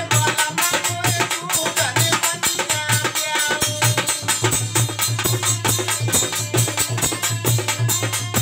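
Rasiya folk music played on dholak, chimta and harmonium. The dholak keeps a fast, steady rhythm with a pulsing bass stroke, the chimta's jingles run along with it, and the harmonium holds sustained notes above.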